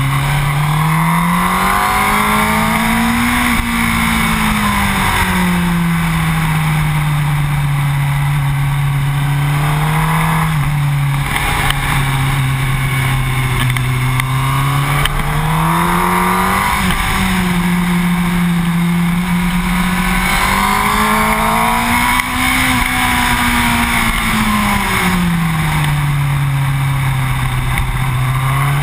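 Yamaha R1 inline-four motorcycle engine under way, its revs climbing and falling smoothly several times as the rider works the throttle, over a steady rush of wind and road noise.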